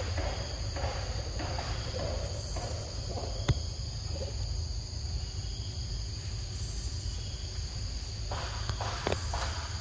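A steady outdoor chorus of insects, several high chirring tones held without a break. Over it, footsteps rustle through grass and dry leaves during the first few seconds and again near the end, with one sharp click about three and a half seconds in.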